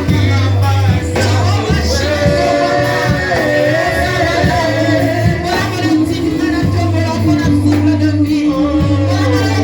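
Upbeat church praise music with singing over a driving bass line and busy percussion, amplified in a large hall.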